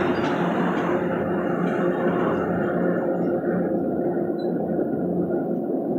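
MBTA commuter rail train's bilevel passenger coaches rolling past on the tracks: a steady rumble with a low hum, the higher rail noise thinning out over the second half as the last coach goes by.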